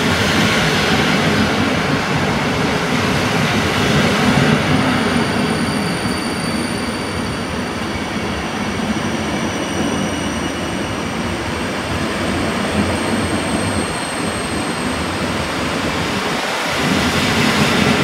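Passenger coaches of an express train running past at speed: a steady, loud rush and rumble of wheels on rail, with faint thin high whines from the wheels.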